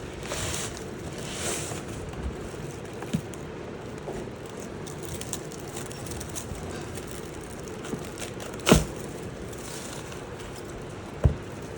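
Rustling and light handling noises over a steady background hum, with two sharper knocks about nine and eleven seconds in.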